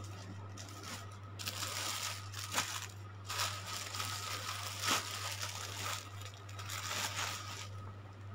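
Clothes being handled and rustled close to the microphone, in three stretches of rustling with a couple of sharp clicks.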